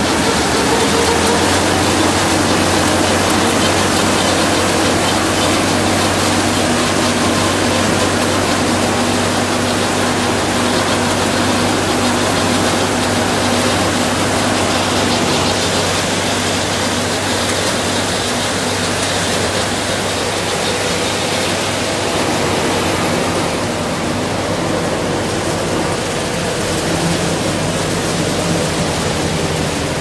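Corn harvester running in the field: a steady low engine drone under a loud, even rush of machinery noise.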